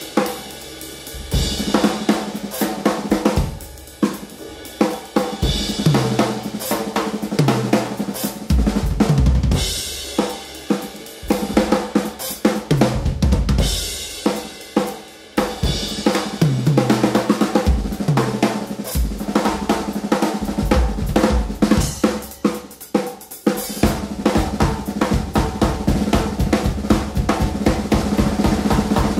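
Music led by a drum kit playing a busy beat, with a stepping bass line underneath.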